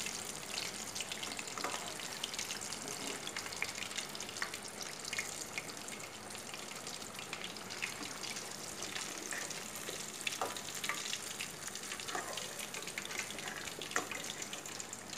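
Oat-coated chicken nuggets deep-frying in hot oil, a steady sizzle full of fine crackles, with a few sharper clicks along the way.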